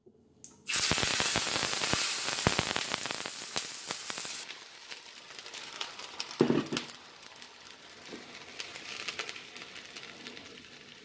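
Water poured into hot oil tempered with mustard seeds and curry leaves in a small frying pan: a sudden loud sizzle breaks out about a second in, then after a few seconds eases to a quieter, steady sizzling with scattered crackles.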